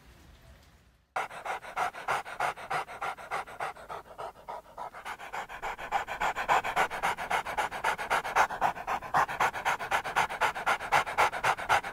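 A dog panting quickly and steadily, about five or six pants a second, starting abruptly about a second in and growing louder about halfway through.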